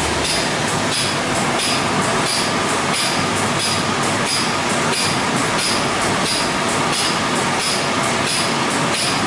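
WashTec SoftWash rollover car-wash gantry brushing a car: a steady wash of spinning brushes and water noise, with a short high swish repeating about one and a half times a second.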